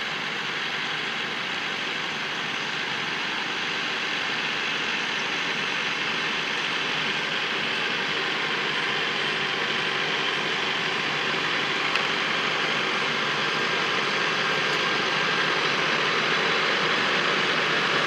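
John Deere 6330 tractor's four-cylinder diesel running steadily while pulling a working Grimme SE 75-40 potato harvester, the harvester's machinery running along with it. The sound grows slowly louder as the rig approaches.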